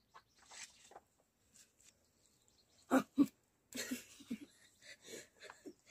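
Short voice sounds from children: two brief loud vocal sounds about three seconds in, then quieter scattered vocal sounds.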